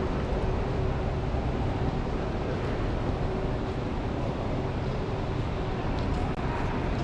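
Steady vehicle noise: a low rumble and hiss with a constant mid-pitched hum running through it.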